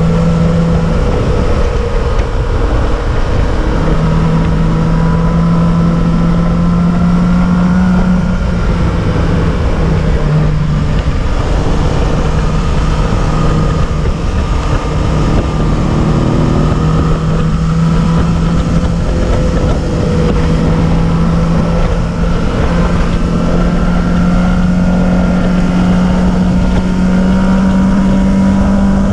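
Motor vehicle engine running at a steady pitch over constant low road and wind rumble. The engine note drops out briefly a couple of times and rises a little near the end.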